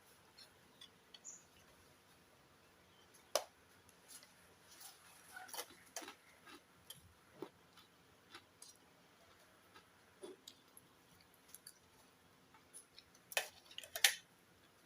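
Faint, scattered clicks and taps of a person eating and handling food and utensils, with two sharper clicks near the end.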